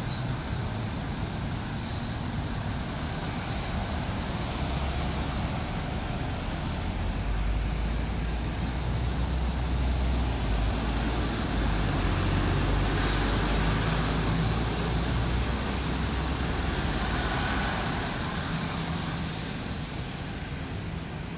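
A double-decker bus drives slowly past with a low engine rumble that builds about five seconds in, is loudest around the middle, and fades away near the end, over steady bus-interchange traffic noise.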